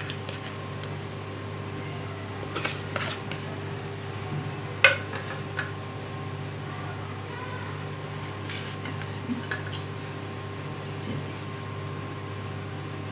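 Scattered light clinks and taps of dishes and a spoon against a plate and bowl, the sharpest about five seconds in, over a steady low hum.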